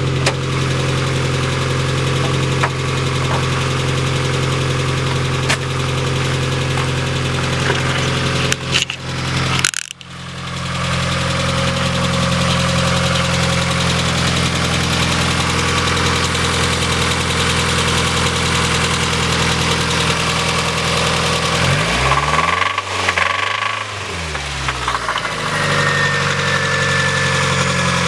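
Mazda Miata 1.6-litre four-cylinder engine running with a rod knock from a failed rod bearing, caused by running low on oil. The engine is revved up and back down once about three-quarters of the way through.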